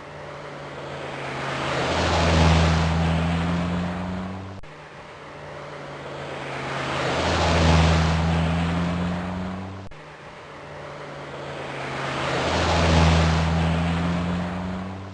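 Toyota Supra turbo engine running with steady low engine tones while a rushing hiss swells to a peak and fades away, three times over in the same pattern as the clip repeats.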